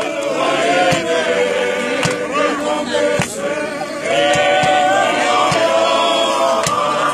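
A group of voices singing together in chorus, a hymn-like choral song that grows louder about four seconds in, with occasional short sharp knocks.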